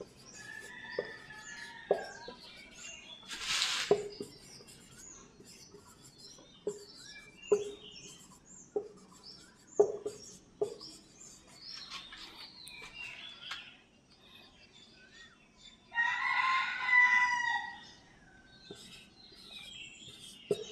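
Short taps and strokes of a marker on a whiteboard as words are written, with small birds chirping. About sixteen seconds in, a rooster crows once for about two seconds, the loudest sound here.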